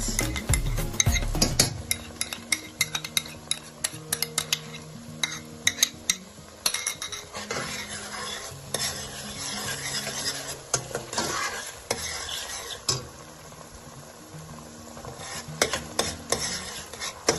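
A spoon stirring in a pot, clinking and scraping against it again and again, over the sizzle of tomato paste frying in hot palm oil with onions.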